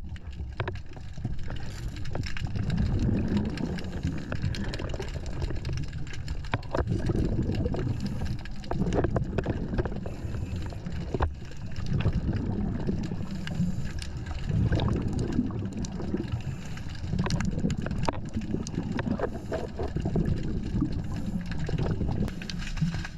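Underwater sound at a scuba diver's camera: a low rumble of exhaled regulator bubbles that swells every few seconds, with scattered sharp clicks and knocks.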